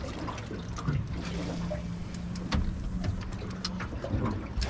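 Water lapping and splashing against a small fishing boat's hull, with scattered small splashes and clicks. A steady low hum runs under it and stops a little before the end.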